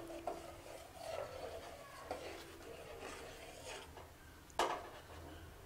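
Steel spoon stirring milky vermicelli kheer in a stainless-steel pot, scraping faintly against the pot, with one sharp metal clink near the end.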